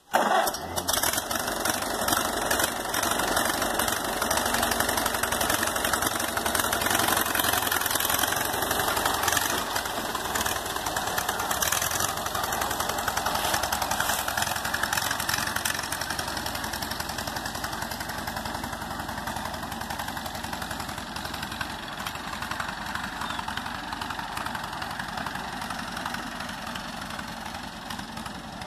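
Farmall C tractor's four-cylinder gasoline engine running as the tractor drives off, fading slowly as it moves away. Its governor spring is newly fixed, and the owner reports one valve is still sticking but slowly freeing up.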